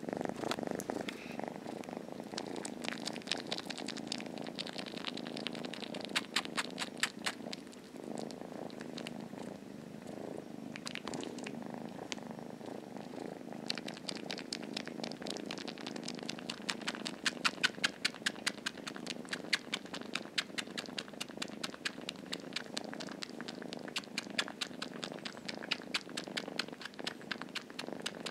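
Kitten purring steadily right at the microphone, with a fast run of wet smacking clicks as it suckles on the shirt fabric as if nursing.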